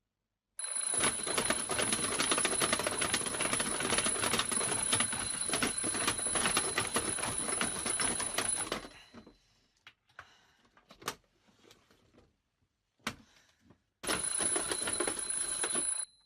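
Alarm clock bell ringing in a fast, continuous rattle for about eight seconds, then stopping. A few scattered clicks and knocks follow, and the bell rings again for about two seconds near the end.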